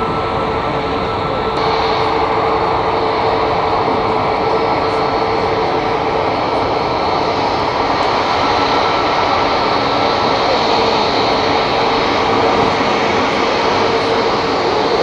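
Jet airliner engines running at taxi power: a steady, loud roar with a held tone running through it.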